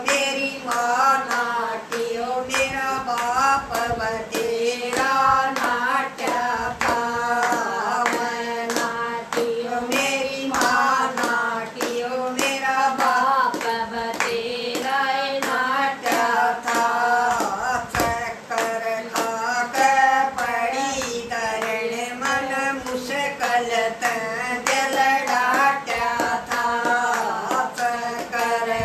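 Women singing a Haryanvi folk bhajan together, unaccompanied except for their own steady, evenly spaced hand claps keeping the beat.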